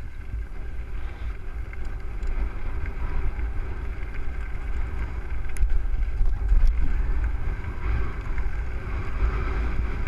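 Wind buffeting the microphone of a mountain bike's action camera as the bike rolls fast down a gravel trail, tyres crunching over loose stones, with a couple of sharp clicks from the bike a little past the middle.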